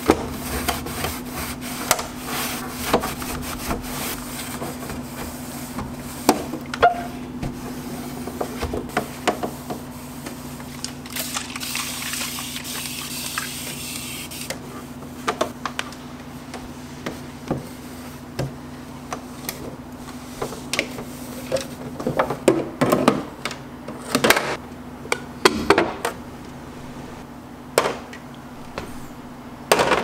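Hand-cleaning plastic refrigerator door bins: wiping and rubbing, with many scattered knocks and clicks of plastic, over a steady low hum. A high hiss lasts about three seconds, about eleven seconds in.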